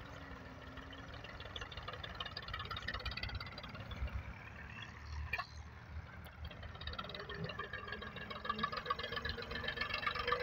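Massey Ferguson 240 tractor's three-cylinder diesel engine running under load as its front blade pushes loose soil, getting louder as the tractor comes closer.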